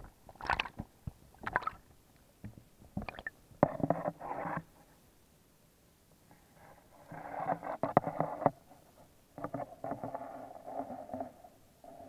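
Muffled underwater knocks and rumbling picked up by a submerged camera among a crowding shoal of catfish: several sharp knocks in the first few seconds, then longer dull rumbling stretches.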